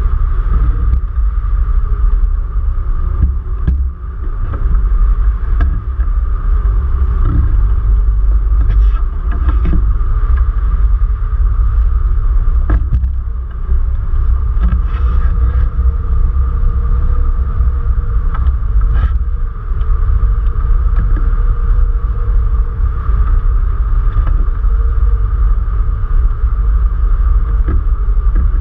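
Wind rushing over a camera mounted on the wing of a hang glider in flight: a loud, steady, low rumble of buffeting, with a steady whistle above it.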